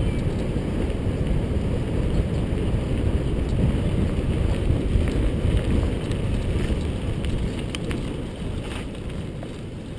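Wind buffeting a helmet-mounted camera's microphone as a mountain bike rides down a gravel track, with the tyres rumbling over the gravel. The rush of noise eases in the last couple of seconds, with a few small clicks.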